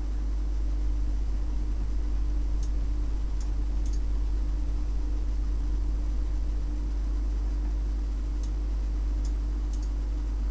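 Steady low electrical hum and hiss of a recording's background noise, with faint clicks in two groups of three, about three seconds in and again near the end.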